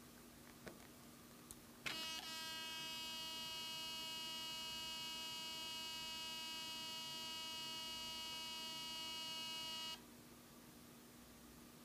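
Olympus OM-D E-M5 mirrorless camera making a steady high-pitched whine, with many overtones, after being switched on; it starts about two seconds in after a couple of faint clicks and cuts off suddenly some eight seconds later. The owner takes the noise for a fault in the camera.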